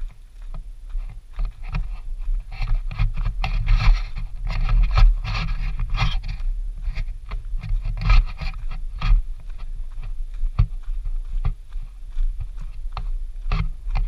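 Footsteps crunching on a gravel trail, mixed with scraping and knocking handling noise from a camera on a hand-held pole, over a steady low rumble.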